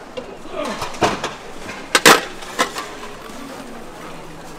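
A few sharp knocks and clatters: one about a second in, a close pair, the loudest, about two seconds in, and a lighter one soon after, over a steady background.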